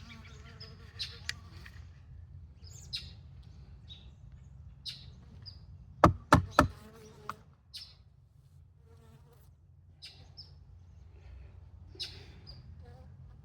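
Honeybees buzzing at the hive entrance, a steady low hum from defensive guard bees stirred up by the hive being opened. A few sharp clicks or knocks come about six seconds in.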